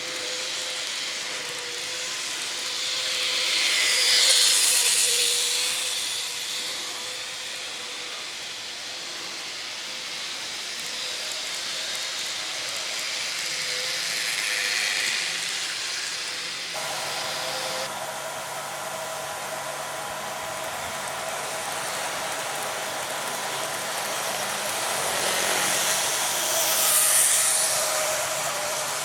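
Model trains running on a layout: a steady whir and rolling noise that swells twice as a train passes close, about four seconds in and again near the end, with a steady hum joining in partway through.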